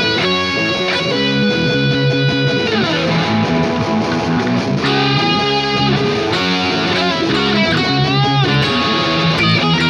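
Electric guitar strung with Ernie Ball Hybrid Slinky nickel-wound strings, gauge 9–46, played continuously with held notes and string bends that slide up and down in pitch near the start, about three seconds in, and around eight seconds.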